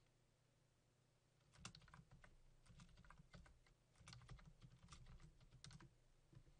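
Faint typing on a computer keyboard: a quick run of keystrokes starts about a second and a half in and goes on for about four seconds.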